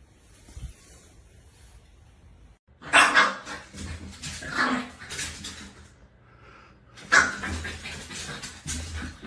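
A dog vocalizing loudly, with barks among the sounds, in two spells of about three and two seconds after a quiet start with one soft thump.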